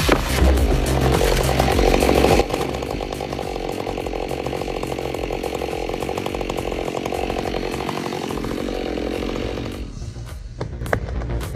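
Chainsaw running under load, cutting wood. It drops abruptly about two and a half seconds in, runs on steadily a little quieter, and falls away near the end.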